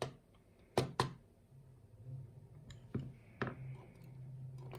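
A few sharp clicks of small brass lock pins and metal tools being handled as a pin-tumbler lock is taken apart: two close together about a second in, two more around three seconds in.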